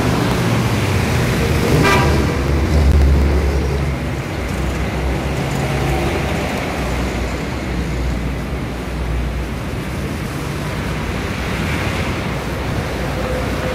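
City street traffic: a steady low rumble of passing vehicles, with a short vehicle-horn toot about two seconds in and a heavier vehicle rumbling past just after it.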